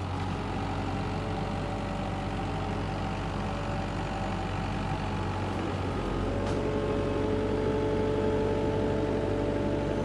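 An engine running steadily at an even idle, with a low hum and a few steady tones; its pitch shifts slightly about six seconds in.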